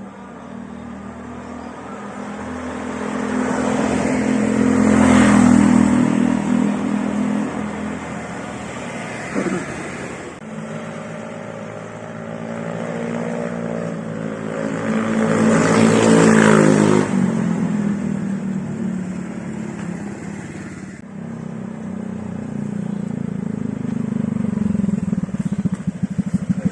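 A Honda Vario 150 scooter's single-cylinder engine runs through an ABF Racing standard-style aftermarket exhaust. It is revved up twice from idle, each rev climbing for a few seconds and falling back, and near the end it settles into a steady pulsing idle.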